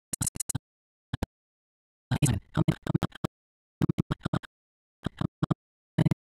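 Recorded character dialogue played back in short, choppy snippets as the audio timeline is scrubbed back and forth. Each snippet cuts off abruptly, with clusters of fragments near the start, around two to three seconds in, around four seconds in, and near five and six seconds.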